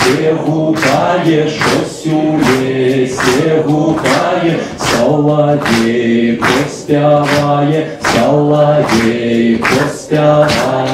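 A man's voice singing a Belarusian folk song unaccompanied, in short rhythmic phrases with brief breaks between them.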